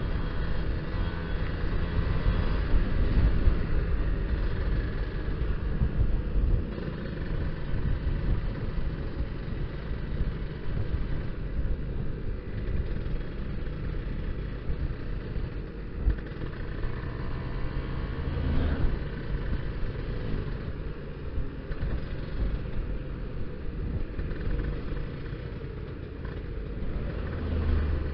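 Kawasaki Ninja R's two-stroke engine running on the move, revs rising and falling. Its carburettor is set rich ("basah"), which makes it splutter a little at low revs.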